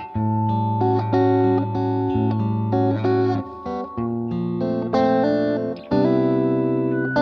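Background music: a guitar melody of plucked notes that change every half second or so.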